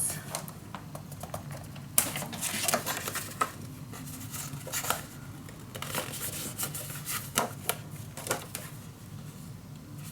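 Paper and card being handled and pressed into place on a craft table: scattered light clicks, taps and rustles, the sharpest click about two seconds in.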